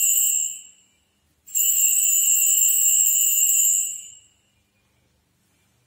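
Altar bells shaken at the elevation of the consecrated host, marking the consecration. One ringing trails off in the first half second; a second ringing starts about a second and a half in, runs for about two and a half seconds and fades out.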